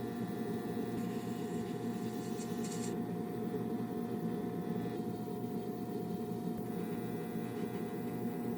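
Steady mechanical running noise with a constant hum, from a small machine running at an even speed.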